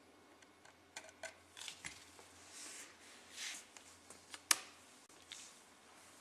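Small plastic parts being handled on a table: shaft-diameter inserts and their control template. A few light clicks and a couple of soft scrapes, with one sharper click about four and a half seconds in.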